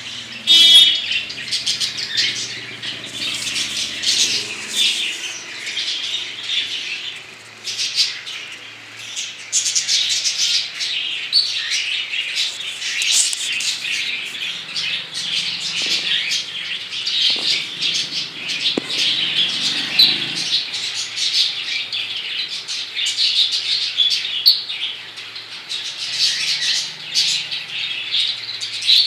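A flock of caged budgerigars and cockatiels chattering, with many chirps and squawks overlapping continuously.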